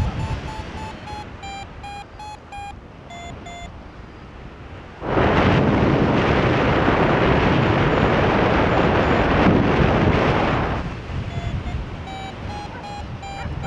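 Electronic background music of short beeping notes over a low wind-like rumble. About five seconds in, a loud hissing rush cuts in, lasts about six seconds and fades out, and the beeping notes return near the end.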